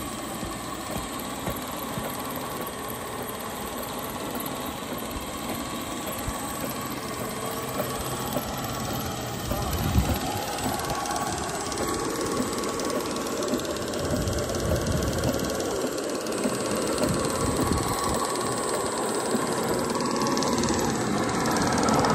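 Belt-driven water pump set, an electric motor turning the pump through a long flat belt, running steadily and growing louder toward the end, with one sharp knock about halfway through.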